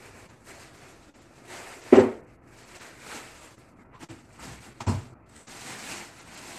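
Two dull knocks about three seconds apart, the first the louder, over a faint steady hiss in a kitchen.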